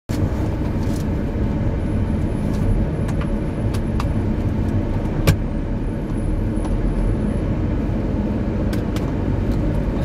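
Car driving slowly along a rough dirt road: a steady low engine and road rumble with scattered knocks and rattles, the sharpest about five seconds in.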